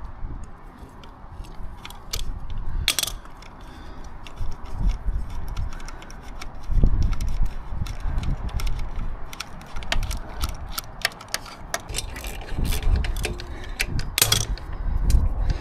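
Socket ratchet wrench clicking in quick, uneven runs as bolts are worked, with a few dull knocks of parts being handled.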